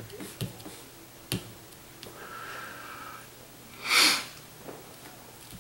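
Trading cards handled on a playmat: a few light taps and clicks in the first second and a half, then a short, loud rush of noise about four seconds in.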